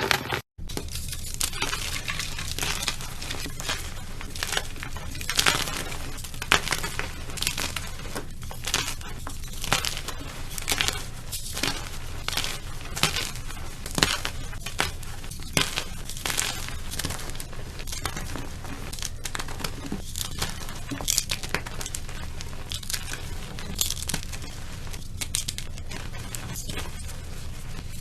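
Gym chalk slime being squeezed and pressed by hand, giving dense, irregular crunchy crackling as the chalk crumbles in the slime.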